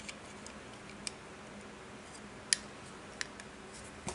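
A handful of sharp little clicks, the loudest about two and a half seconds in, from prying the small C-clip that retains the vario vane out of a Scubapro G250 second stage's plastic case.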